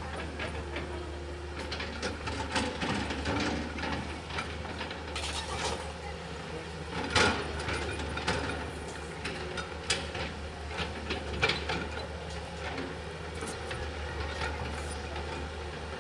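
Tracked excavator's diesel engine running steadily while the bucket digs and scrapes the soil slope, with scattered knocks and clanks from the bucket and arm. A sharp clank about seven seconds in is the loudest, with another near eleven seconds.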